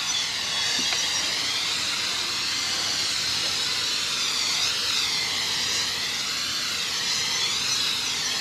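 Aerosol can of canola cooking oil spraying in one long continuous hiss that wavers as the spray is swept back and forth, coating the inside of a new electric smoker to season it.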